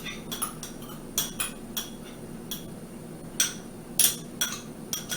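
Kitchen utensils clinking and knocking against a dish, about eight light irregular clinks, the loudest a little past the middle.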